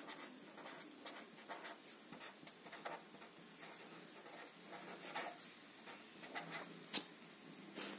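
Pen writing a word on paper: faint, irregular scratching of the pen tip across the sheet, stroke by stroke.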